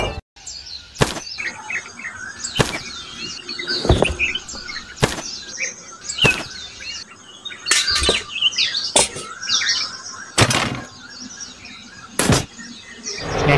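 Birds chirping, with sharp clicks or knocks at uneven intervals, roughly one every second or so.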